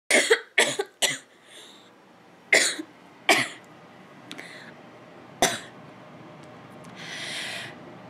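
A woman's asthma cough: three quick coughs, two more a couple of seconds later, and a last one about five seconds in, with breaths drawn in between. It is the coughing of an asthma flare-up.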